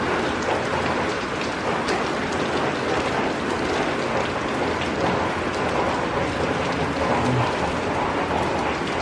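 Steady rain falling, an even hiss with scattered drops ticking close by.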